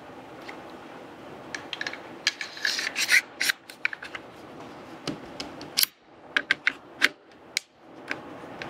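Metal sliding and clicking as an AR-style rifle's bolt carrier group is worked into the upper receiver and the upper is then fitted onto the lower receiver. Scattered sharp clicks, with a stretch of scraping about three seconds in.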